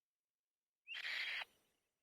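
A single harsh bird call lasting about half a second, trailing off briefly after it.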